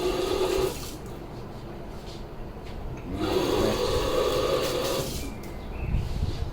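Running water in two spells, a short one at the start and a longer one of about two seconds in the middle, each rising in pitch as it goes.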